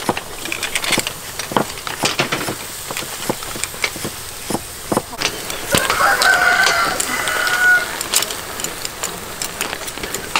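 Snails in their shells sizzling and crackling on a charcoal grill, with many quick pops. About six seconds in, a rooster crows once, for about two seconds.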